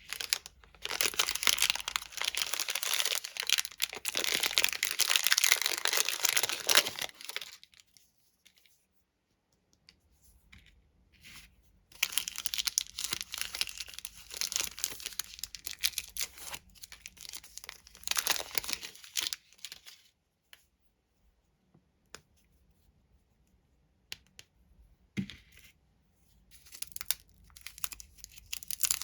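Plastic candy and lollipop wrappers being torn open and crinkled by hand: two long spells of dense crackling, a quieter stretch with a few scattered clicks, and crinkling again near the end.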